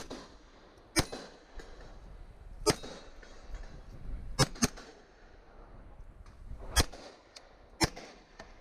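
Glock 17 9mm pistol firing single shots at an uneven pace, about six in all with a quick pair near the middle, the gaps coming as the shooter moves between targets.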